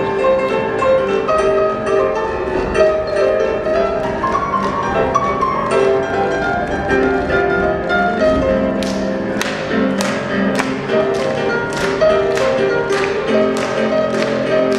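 Instrumental dance music of held, pitched notes. About two-thirds of the way in, a sharp, evenly spaced tapping beat joins at about two taps a second.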